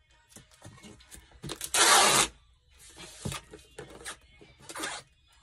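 Packing tape pulled off the roll onto a cardboard box: one loud rip lasting about half a second, about two seconds in, followed by shorter, softer pulls and rubbing as the tape is pressed down.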